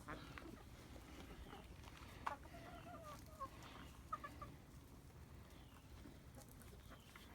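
Chickens clucking softly, a few short calls in the first half, then fainter.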